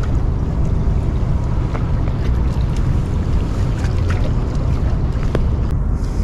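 Wind buffeting the microphone, a loud steady low rumble, with a few faint clicks from handling the fishing gear.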